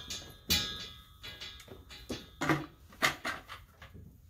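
A string of sharp knocks and clangs of struck metal. The hit about half a second in rings on briefly with a metallic tone.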